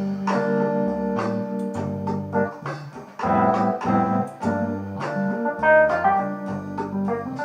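Keyboard music: a run of pitched notes with frequent note onsets over sustained lower tones.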